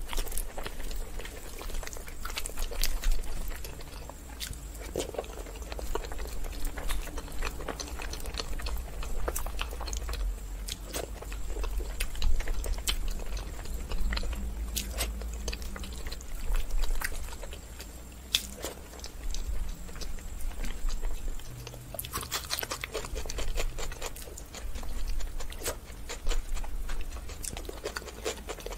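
Close-miked chewing and wet mouth clicks of a person eating bread and curry by hand, with many short sharp clicks throughout.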